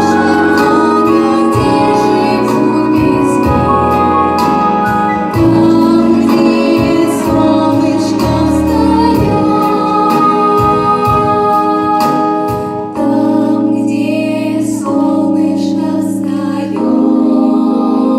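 A group of voices singing in harmony over instrumental accompaniment, holding long notes against a light, steady beat.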